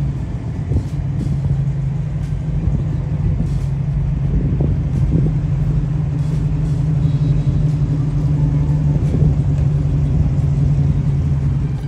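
A muscle car's engine running steadily at low speed as the car rolls slowly past, one deep note that holds its pitch throughout and swells a little near the end.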